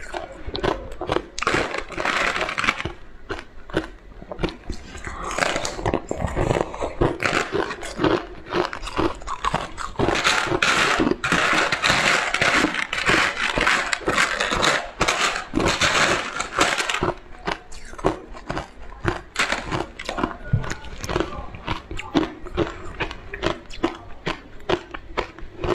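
Close-miked eating: a person biting and chewing crunchy, wet food in quick irregular crunches. The crunching is densest and loudest for several seconds in the middle.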